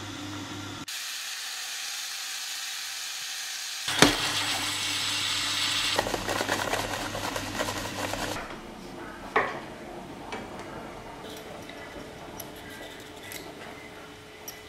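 Onions sizzling in a pot as they caramelise with sugar, loudest and crackling from about four seconds in until about eight seconds. Then a peeler scrapes and clicks lightly against a beetroot.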